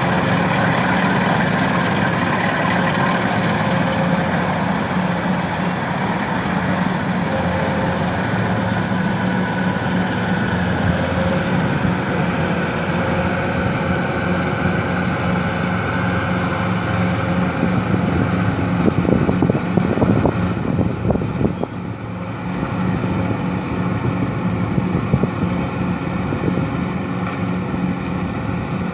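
An engine running steadily at an even speed, with a handful of sharp knocks about two-thirds of the way through.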